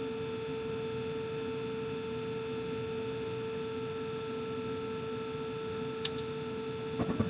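Carrier Infinity 98 gas furnace's variable-speed inducer fan running with a steady hum while the hot surface igniter heats up before ignition. Two sharp clicks sound about six seconds in, and a few more near the end.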